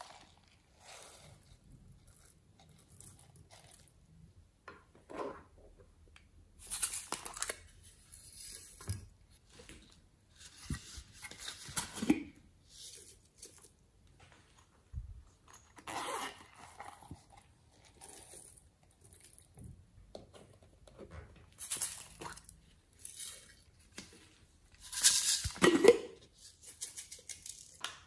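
Sprinkles, sequins and glitter being shaken out of small plastic containers onto a tray of slime: intermittent rustling, rattling bursts, with the containers handled and knocked in between.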